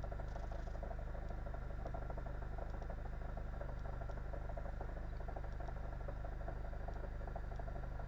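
Car engine idling with the clutch pedal released, a fast, even rattling knock running with the engine. The owner links this knock to the clutch.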